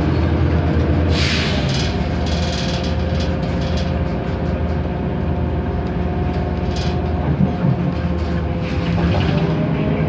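Inside a NABI 31 LFW transit bus under way: its Cummins Westport ISL G natural-gas engine and drivetrain running steadily with road noise, with a few brief rattles.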